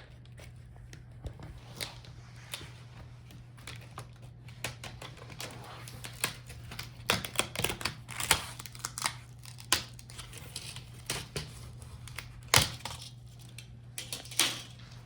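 Plastic front bezel of an HP 15-fd laptop screen being pried off by hand: irregular clicks, snaps and crackles as its clips and adhesive let go, with one sharper snap late on.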